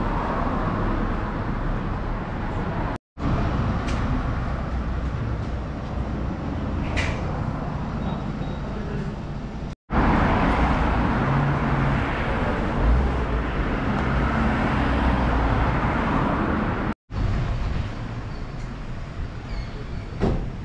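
Street ambience with steady traffic noise, broken three times by a sudden brief drop-out to silence.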